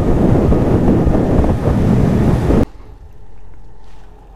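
Wind blasting the microphone over the rush of water from a fishing boat running fast under outboard power. It cuts off suddenly about two and a half seconds in, leaving a much quieter, faint steady background.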